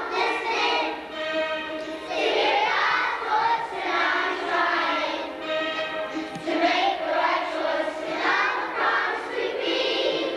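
A choir of young children singing a song together, in phrases a couple of seconds long.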